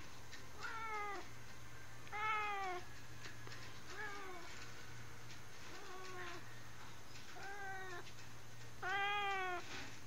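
A seal-point long-haired cat meowing repeatedly: six meows about a second and a half apart, each rising then falling in pitch. The last one is the longest and loudest.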